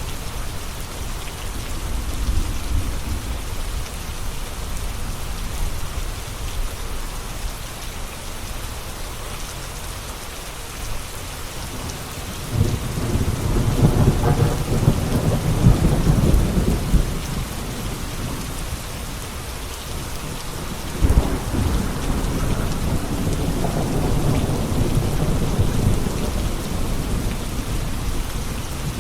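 Steady rain falling, with a long roll of thunder rumbling in about halfway through and a sharper thunderclap a few seconds later that trails off into more rumbling.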